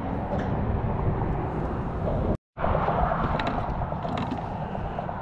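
Steady low rumbling outdoor noise on the microphone, broken by a short dead-silent gap about two and a half seconds in where the recording cuts.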